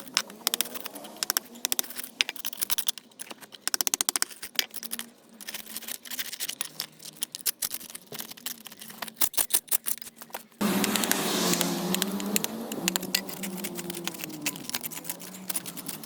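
Rapid, irregular clicking and scraping, then about ten seconds in an engine hum starts abruptly and runs on with a wavering pitch.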